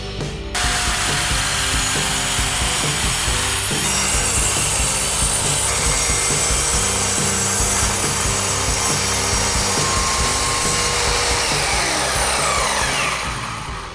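Electric power saw cutting through a wooden board, a loud steady cut starting about half a second in; near the end the trigger is released and the motor winds down, its pitch falling away.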